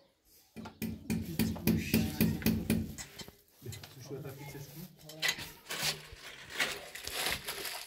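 Sharp metallic clicks and clinks of plumbing hand tools and pipe fittings being handled, over low voices.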